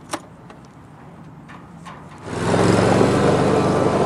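A few faint clicks, then a little over two seconds in an engine starts sounding close by, suddenly and loudly, and keeps running steadily.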